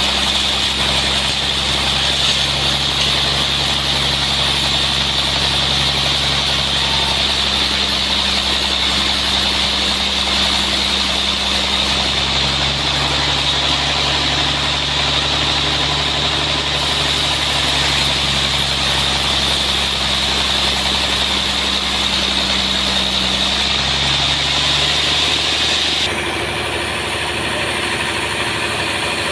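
Sawmill's engine running steadily, with a high hiss over it that stops suddenly near the end, leaving the engine note.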